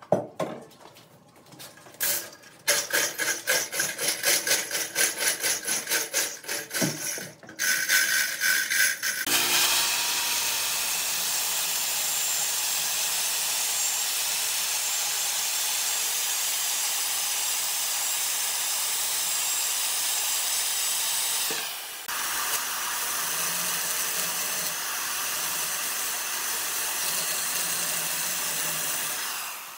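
Woodworking tool cutting wood, first in a rapid run of even strokes, then from about nine seconds in as a steady loud hiss that breaks off briefly near 22 seconds and resumes.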